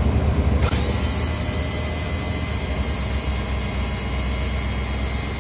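HWH hydraulic leveling-jack pump's electric motor running, its negative lead now grounded through an added external bolt on the case after the internal ground failed. About half a second in, a high whine comes up to speed and holds steady over a low rumble.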